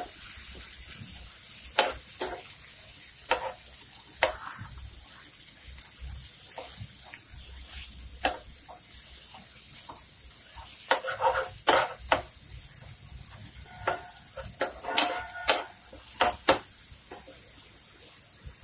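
Metal slotted spoon tapping and scraping against a nonstick frying pan while onions and tomatoes are stirred and pressed to smash the tomatoes: irregular sharp clicks, bunched in quick clusters about eleven and fifteen seconds in, over a faint sizzle of frying.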